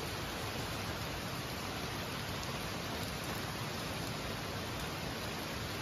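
Steady rain falling on garden foliage and wet paving, an even hiss with no let-up.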